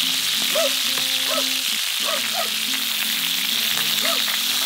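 Marinated sirloin steaks frying in hot oil in a pan, a steady sizzling hiss, while a spoon bastes them with the pan juices.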